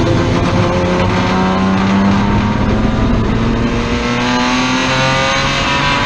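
Race car engine heard from inside the cockpit, accelerating hard: its pitch climbs, drops back once about halfway through as it shifts up a gear, then climbs again.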